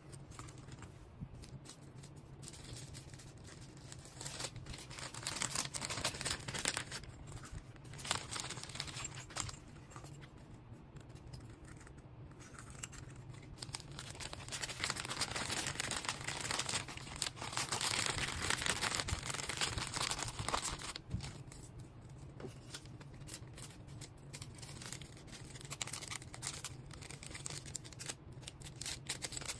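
Packaging being handled and packed by hand: irregular crinkling, rustling and tearing of wrapping material, over a low steady hum.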